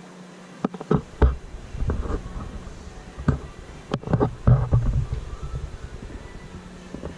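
Handling noise on a handheld camera's microphone: a series of sharp knocks and clicks with low rumbling thumps, loudest about a second in and again around four and a half seconds, over a steady low hum.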